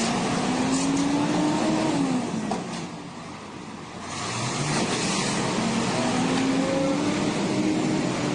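Heavy truck diesel engine revving under load while pulling a bogged truck out of mud. The engine note climbs for about two seconds, falls away and eases off, then climbs again from about five seconds in.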